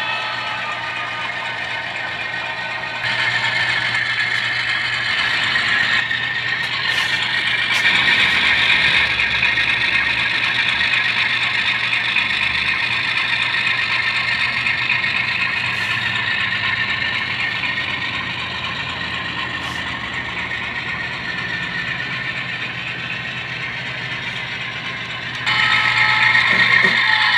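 Model diesel locomotives pulling freight cars around a layout: a steady mechanical whir and clatter of motors and wheels on track over a low hum. It gets louder about three seconds in and again near the end.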